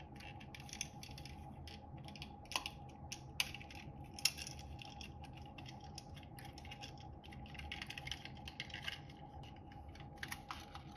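Irregular light clicks and taps of plastic and metal as the clear plastic case of a dimmer wall switch is worked off its metal housing, with a few sharper snaps about three to four seconds in.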